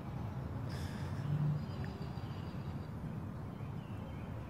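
Outdoor background ambience: a steady low rumble like distant traffic, with a brief soft noise about a second in.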